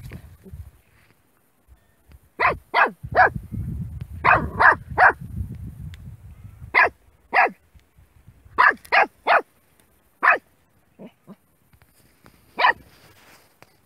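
A puppy barking at a snake: short, sharp, high yaps in quick runs of two or three, with a few fainter, lower ones near the end. A low rumbling noise lies under the opening and the first runs of barks.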